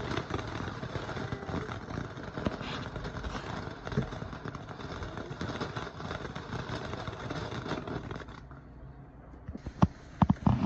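Ground fountain firework spraying sparks: a steady hiss dotted with crackles that dies down about eight seconds in, followed by a few sharp pops near the end.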